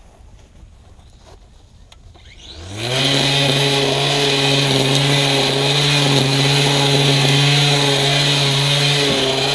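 Black & Decker cordless electric string trimmer's motor being test-run after a repair. A few faint clicks, then about two and a half seconds in it spins up with a quick rising whine and runs loud and steady at full speed.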